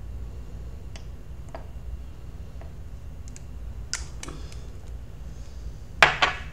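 Scattered light clicks and taps from handling an e-liquid dropper bottle and a rebuildable dripping atomizer while dripping juice onto its cotton, with two sharper clicks close together near the end.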